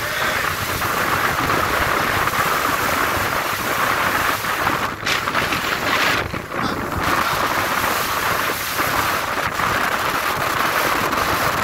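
Speedboat running at speed: a steady rush of engine and churning wake, buffeted by wind on the microphone, with brief dips about five and six seconds in.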